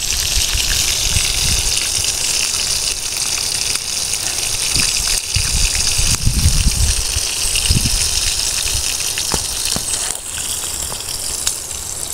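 Meat frying in a small pan over a campfire: a steady sizzling hiss with a few sharp pops in the second half. Low rumbles come and go around the start and again midway.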